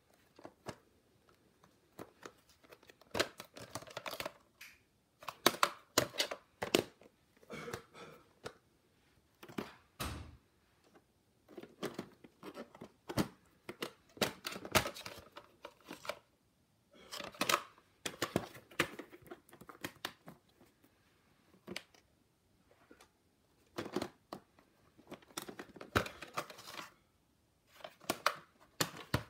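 Plastic VHS clamshell cases being handled: irregular clicks, taps and rustles as the cases are picked up, turned over and opened.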